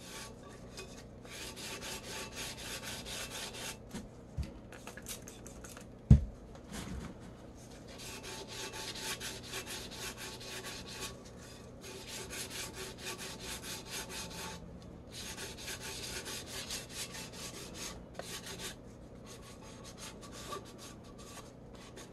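400-grit wet sandpaper rubbed lightly by hand over a tumbler's clear Brite Tone top coat, knocking down bumps in the finish. It goes in quick back-and-forth strokes, in stretches of a few seconds with short pauses between. A single sharp knock comes about six seconds in.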